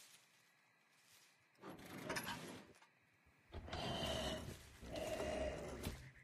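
A sleeping cartoon tractor snoring: three faint, drawn-out snores, each about a second long.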